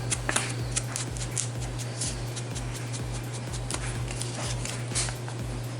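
Distress ink pad being dabbed and rubbed along the cut edges of cardstock paper pockets: a run of light taps and scrapes over a steady low hum.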